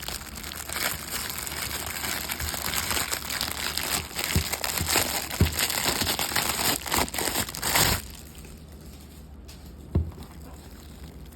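Packaging crinkling and rustling as a boxed Ethernet cable is unwrapped by hand, with many small sharp crackles. It stops about eight seconds in, and a single click follows a couple of seconds later.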